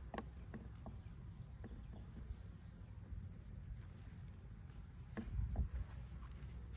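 A steady high insect trill over a quiet outdoor background, with a few light clicks and knocks from hive equipment being handled and a brief low rumble about five seconds in.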